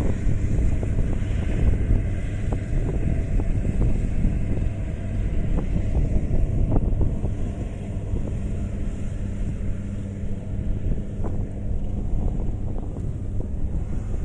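Kubota combine harvester's diesel engine running steadily, with occasional small knocks from the machinery and wind buffeting the microphone.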